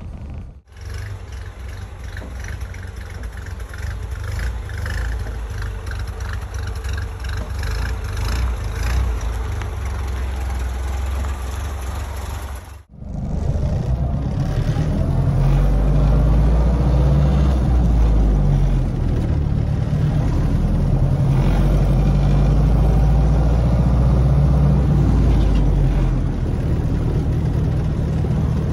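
1932 Ford Model B four-cylinder engine, heard from inside the cab: running moderately and evenly at first, then, after an abrupt cut about halfway, running louder with its pitch rising and falling as the car is driven and shifted through the gears.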